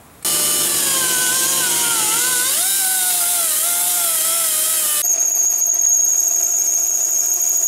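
Power tool cutting or grinding metal, its pitch sagging and wavering under load. About five seconds in it changes abruptly to a steady high whine.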